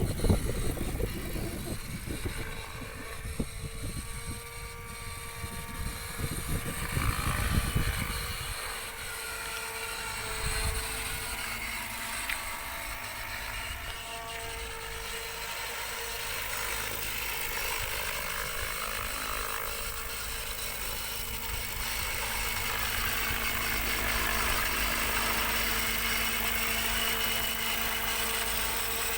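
Helicopter running in flight: a steady rotor hum with a high motor whine. Gusts of low rumble hit the microphone through the first several seconds.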